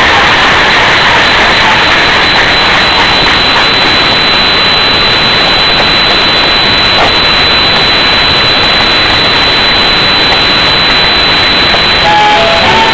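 Audience applause, so loud and overloaded on the camera microphone that it blurs into a steady roaring hiss with a thin high whine over it. Music starts near the end.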